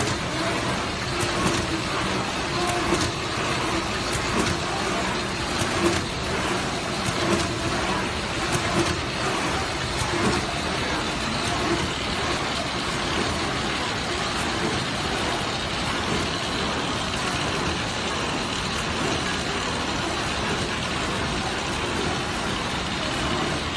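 Paper straw making machine running: a steady mechanical clatter with frequent sharp clicks over the first half, then more even.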